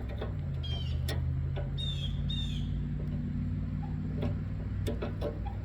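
Light metal clicks and a few short high squeaks from hand work on the small pin holding a commercial fryer's pilot-valve knob, over a steady low hum.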